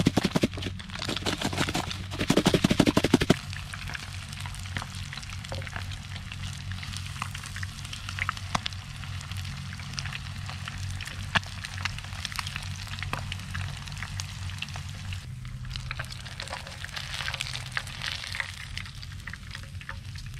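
A lidded plastic container of panko breadcrumbs shaken hard in two bursts over the first three seconds to coat seafood pieces. Then breadcrumbed pieces sizzle steadily as they shallow-fry in oil in a frying pan, with occasional ticks and pops.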